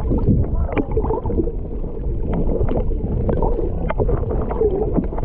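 Muffled underwater rushing and bubbling, heard with the microphone below the surface, with scattered sharp clicks and pops throughout.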